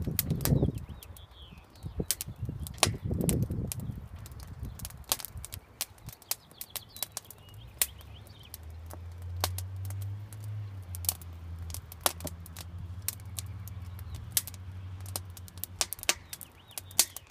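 Wood fire crackling in a steel-mesh fire pit: irregular sharp pops and snaps from the burning logs, several a second at times. A low rumble runs under the first few seconds, and a steady low hum comes in about halfway.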